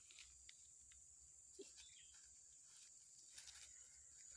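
Near silence: faint, steady high-pitched chirring of insects, with a few faint clicks.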